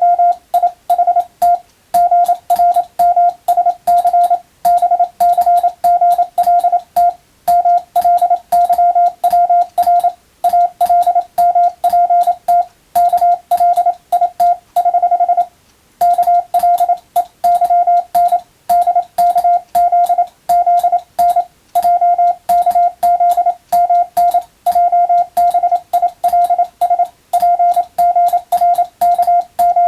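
Hand-keyed Morse code (CW): a single steady beep switched on and off in quick dots and dashes, with short gaps between letters and words. About halfway through one longer held tone is followed by a brief pause before the sending goes on.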